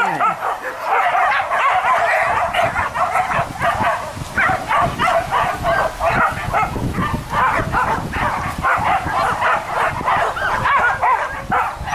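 A pack of boar-hunting dogs yelping and barking nonstop, many voices overlapping into a continuous din.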